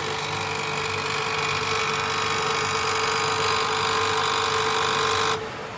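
Commutator undercutting machine running: a steady mechanical whine made of several fixed tones over a low hum, which stops abruptly near the end.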